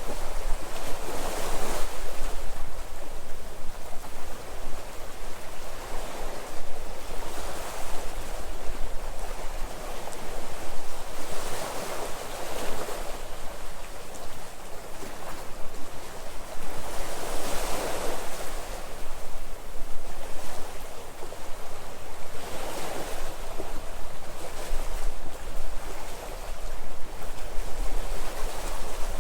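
Sea waves washing in and breaking, swelling and falling back about every five to six seconds.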